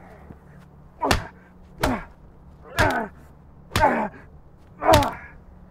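Five heavy blows landing about a second apart, each met at once by a short pained cry that falls in pitch: someone being beaten.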